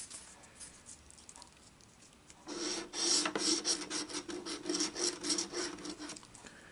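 Scratch-off lottery ticket being scratched: quick, rapid rubbing strokes start about two and a half seconds in and stop shortly before the end.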